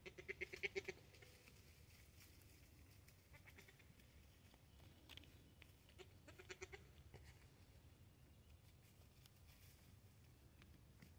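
Goat kids bleating: two high, wavering bleats, one of about a second right at the start and a shorter one about six and a half seconds in.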